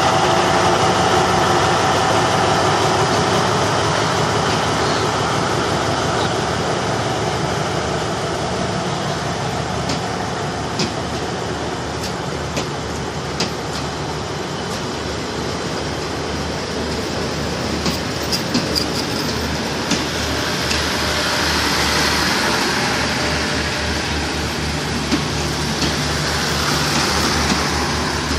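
A diesel locomotive's engine running at the start as an express train pulls out. Passenger coaches then roll past, their wheels clacking over the rail joints with a steady rush of wheel-on-rail noise that grows stronger near the end.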